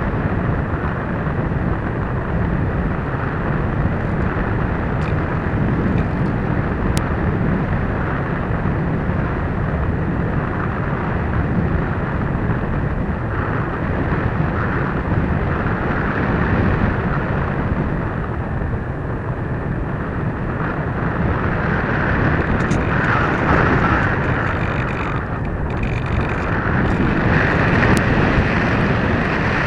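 Steady rush of wind across the onboard microphone of an FPV model glider in flight.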